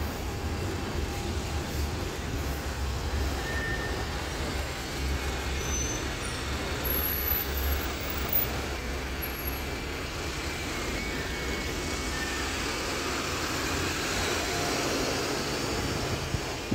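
City street traffic, with the low rumble of bus engines running.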